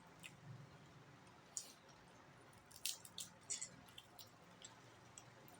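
A person chewing crispy pata close to the microphone: faint wet mouth sounds with a dozen or so short, sharp crackles, mostly in the second half, over a low steady hum.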